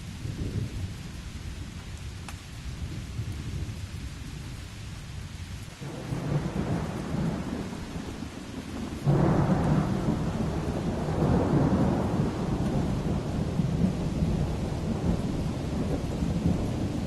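Rain falling steadily with rolling thunder. A low rumble swells about six seconds in, then a loud thunderclap about nine seconds in rolls on for several seconds.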